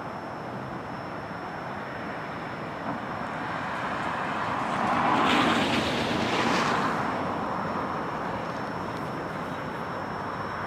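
Freight cars rolling slowly over the rails with a steady rumbling noise. A louder rushing noise swells up and fades away around the middle.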